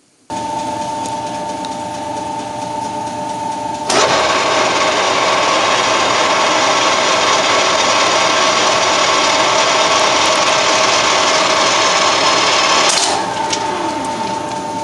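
Colchester Triumph 2000 lathe running with a steady whine from its geared headstock. From about four seconds in to about thirteen, a much louder harsh scraping noise as the cutting tool bites into the spinning steel bolt, then back to the plain running whine.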